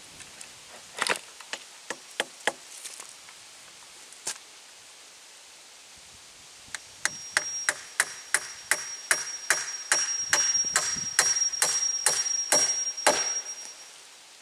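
Hand tool knocking on a wooden fence rail: a few scattered knocks at first, then a steady run of sharp strikes about three a second for several seconds. A thin, steady high-pitched tone runs along with the strikes.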